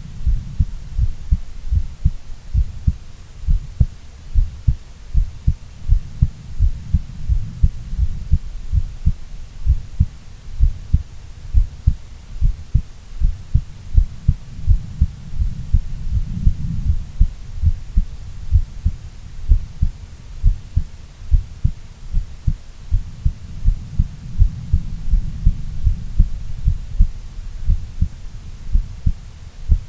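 A woman's heartbeat: a steady, regular run of low thumps, with a low hum between the beats.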